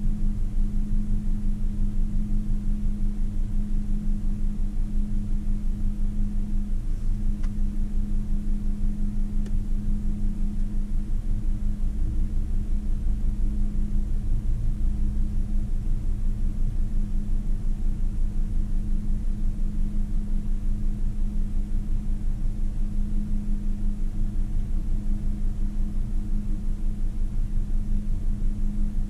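Car engine idling, heard from inside the cabin while the car is stopped: a steady, slightly pulsing hum. About halfway through, another vehicle crossing in front adds a little low rumble.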